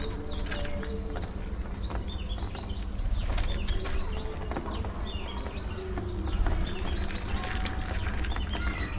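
A flock of budgerigars chirping and chattering in short high calls throughout, with scattered small clicks, over a steady low rumble.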